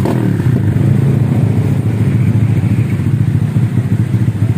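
Honda Vario scooter's single-cylinder four-stroke engine idling steadily through a freshly fitted racing exhaust, a loud, even putter with no revving.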